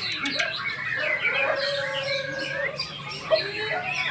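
Several white-rumped shamas singing at once in competition, a dense overlap of varied whistles, trills and chattering phrases that never pauses.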